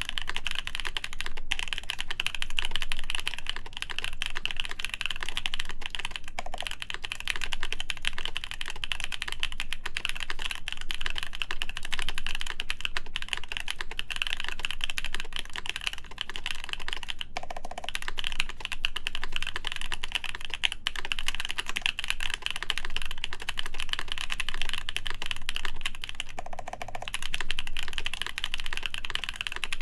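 Continuous typing on a Haytco CAKE60 mechanical keyboard with a full acrylic plate, Epsilon switches lubed with 205g0, and GMK keycaps: a steady stream of keystroke clacks, broken by two brief pauses about 17 and 26 seconds in.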